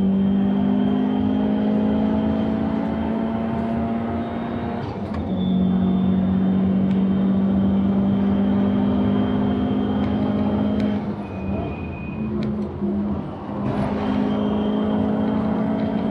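Subaru WRX STI (VAB) turbocharged flat-four, bored and stroked to 2.2 litres with a larger turbo, heard from inside the cabin under hard acceleration at track speed, its pitch climbing slowly in a high gear. There is a short break about five seconds in, and around eleven seconds in the engine eases off and drops in level for a couple of seconds before pulling hard again.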